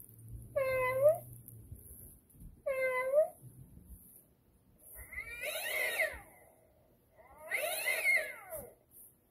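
Animatronic black-cat toy playing recorded cat sounds: two short meows about two seconds apart, then two longer, wavering yowls.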